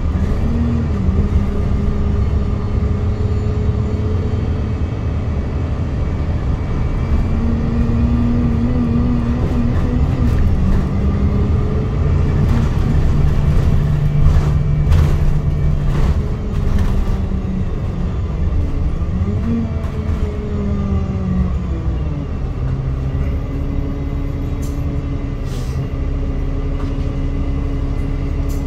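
Alexander Dennis Enviro200 MMC single-decker bus heard from inside the passenger saloon: the diesel engine and drivetrain running as it drives, the engine note rising and falling with speed and gear changes and dropping about two-thirds of the way through. A few knocks and rattles come from the bus body.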